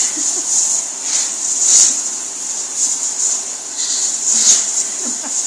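A person blowing short, breathy puffs of air over a very hot pancake to cool it, several puffs in a row.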